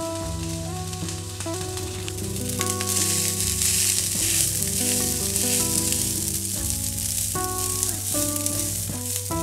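Food sizzling as it fries in a pan, the hiss growing louder about two and a half seconds in, over soft background music.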